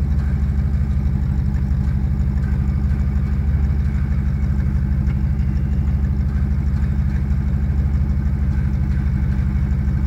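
A car engine idling steadily close by.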